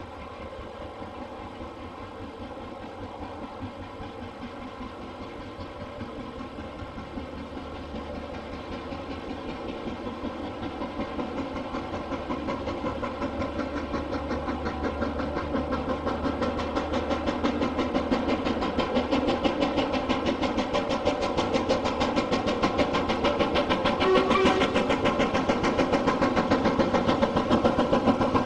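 LMS Black 5 two-cylinder 4-6-0 steam locomotive working on the main line, its exhaust beats coming in rapid, even succession and growing steadily louder.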